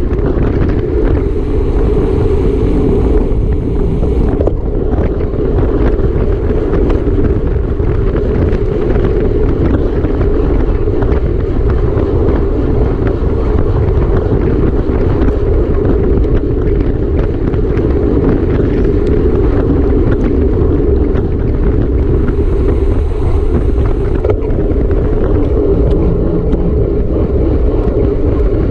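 Steady wind rushing over the microphone of a camera riding on a moving racing bicycle: a loud, even rumble with a couple of brief swells of hiss.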